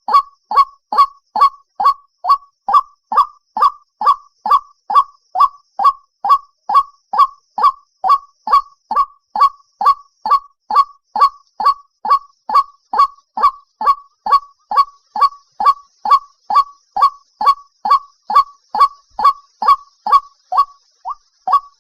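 White-breasted waterhen (dahuk) call: a short note that falls in pitch, repeated evenly about twice a second.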